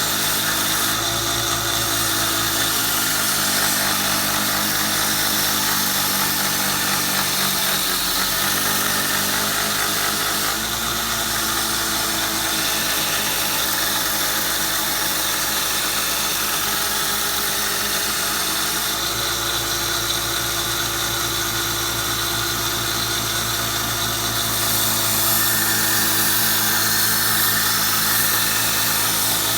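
Belt sander running a 120-grit belt against a steel draw knife blade, grinding out coarser scratches: a steady motor hum under a grinding hiss, its pitch shifting a few times as the pressure on the blade changes.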